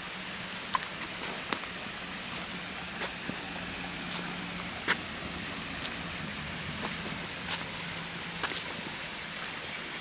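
Steady trickle of a shallow forest stream, with sharp irregular ticks of footsteps on a dirt path about once a second.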